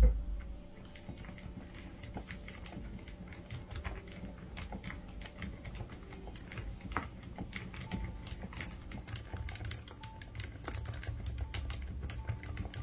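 Typing on a mechanical keyboard fitted with Ainbell Ocean Heart silent switches: a fast, continuous run of short keystrokes, opening with one louder low thump.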